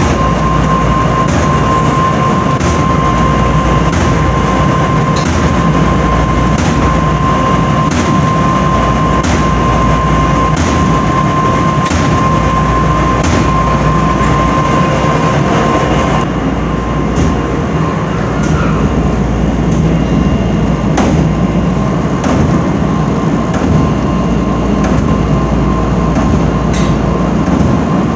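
Commercial laundromat tumble dryers running loudly, their drums rumbling with a regular clack about once a second. A steady high whine runs alongside and drops away about halfway through.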